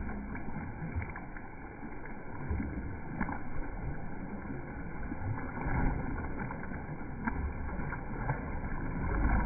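Slowed-down water sounds of a bulldog swimming: a low, muffled sloshing and rumble with a few faint ticks.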